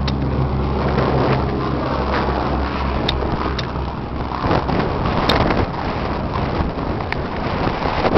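An engine running steadily with a low hum, which fades into a rougher mechanical noise after about three seconds, with scattered light knocks.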